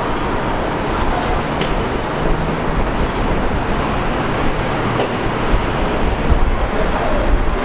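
Steady rumbling noise of a subway train running on an elevated steel track structure, with a few faint clicks.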